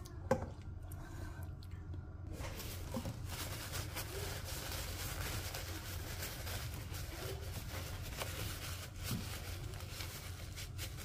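Hands handling an empty clear plastic bottle on a tabletop: a sharp knock just after the start, then steady rustling with small clicks and scrapes.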